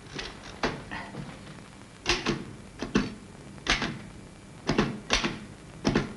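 Manual typewriter being typed slowly, one key at a time, by someone trying it for the first time. There are about ten separate clacks at uneven spacing, a few of them in quick pairs.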